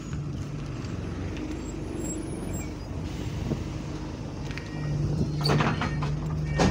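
Alexander Dennis Enviro200 single-deck bus's diesel engine idling at a stop with a rattly rumble. A little before five seconds in come short electronic beeps, then a brief noisy hiss, and the engine hum grows louder and steadier.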